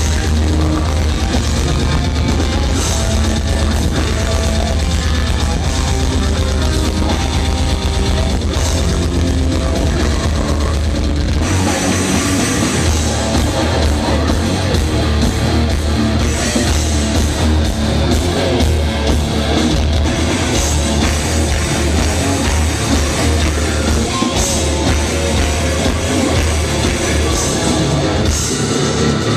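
Live death metal band playing: distorted electric guitars, bass and drums, loud and dense, heard through a small camcorder's microphone. About eleven seconds in, the heavy low end breaks into a choppier pattern as the music moves into a new part.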